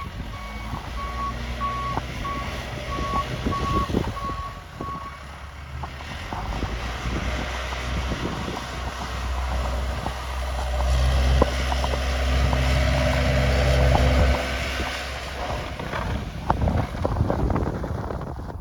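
Snow-plow truck's reversing alarm beeping at a steady pace for about the first five seconds, over the truck's engine running. The engine then grows louder for a few seconds past the middle before easing off.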